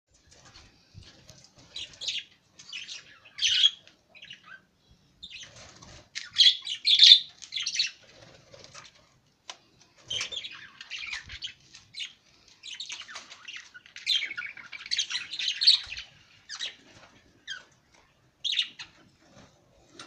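Budgerigars chirping and chattering in repeated bouts, loudest about six to seven seconds in and again around fifteen seconds.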